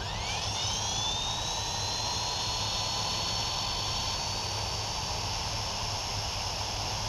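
Walkera Master CP RC helicopter's electric motor and rotor spooling up on the ground: a high whine that rises in pitch over the first second or two, then holds steady.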